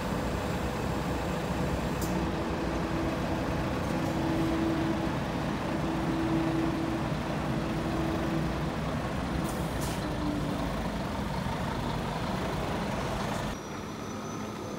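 Scania P230 street sweeper's diesel engine running as the truck drives slowly about. A steady whine is heard over the engine from about two seconds in until about nine seconds in, and a couple of short sharp sounds come near ten seconds. The sound drops to a quieter level near the end.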